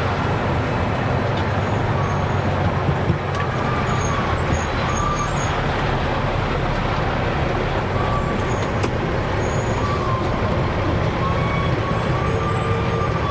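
Dump truck's diesel engine running steadily: a deep, continuous rumble with a faint wavering whine over it.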